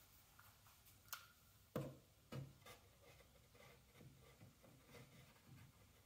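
A handful of faint clicks and knocks, mostly in the first half, as spring clamps are handled and fitted onto the wooden rim of a kayak hatch opening.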